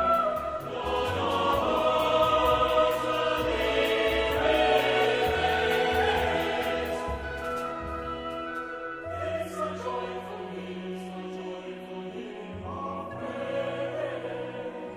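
A choir singing a slow piece of sacred music, full at first and growing softer about halfway through.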